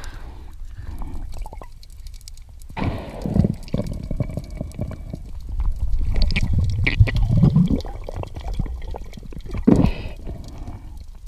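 Muffled underwater water noise from a diver's camera: gurgling and rushing water with a low rumble, swelling in irregular louder surges as the diver moves through the water.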